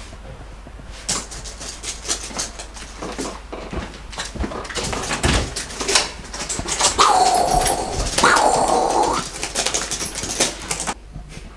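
Two long, drawn-out cries, each held for about a second, follow one another about two-thirds of the way in. Scattered clicks and knocks run around them.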